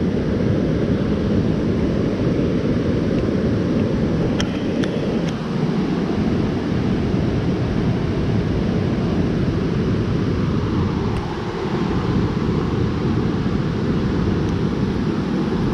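Creek water rushing steadily past, a constant low rushing noise with a few faint ticks about four to five seconds in.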